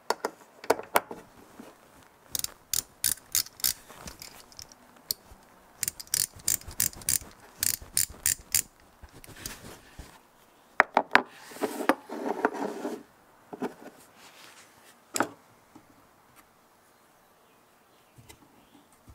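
Freshly cleaned vintage Craftsman 1/4-inch drive ratchet clicking as it is worked back and forth, in runs of quick clicks at about four to five a second. About two thirds in comes a short metallic scraping clatter, then a single sharp metal click.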